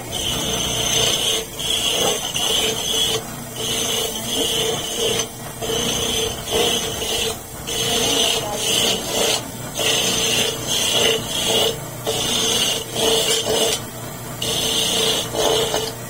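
Electric coconut grater shredding coconut meat as a half-shell is pressed against its spinning grater head again and again. It makes a rasping whine in repeated strokes of about a second each, easing between presses.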